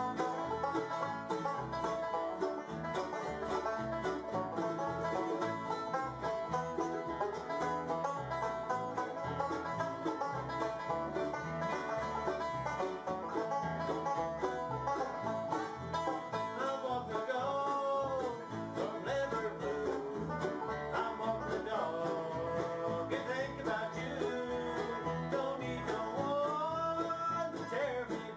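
Acoustic bluegrass band playing: banjo, mandolin, acoustic guitar, fiddle and upright bass together.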